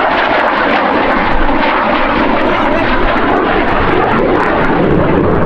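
Loud, steady jet engine noise from an F-16 Fighting Falcon's single turbofan as the fighter flies past overhead, with a faint crackle in it.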